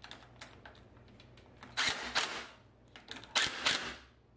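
Cordless impact driver running nuts down onto battery terminal studs, in two short bursts: one about two seconds in and one near the end. A few light clicks come before them.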